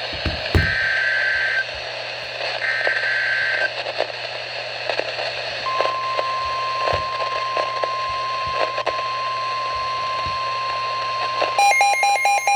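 NOAA Weather Radio Emergency Alert System alert over radio hiss. Two screechy one-second bursts of SAME digital header data come early, then from about six seconds in a single steady 1050 Hz warning alarm tone, marking the start of a new warning. Near the end a fast electronic beeping joins the alarm tone.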